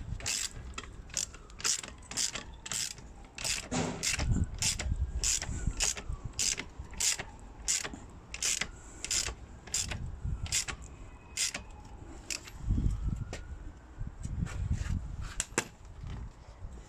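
Hand socket ratchet clicking in steady runs, about two to three clicks a second, as it winds down the threaded rods of a coil spring compressor on a car strut's coil spring. A few dull low knocks come in between the runs.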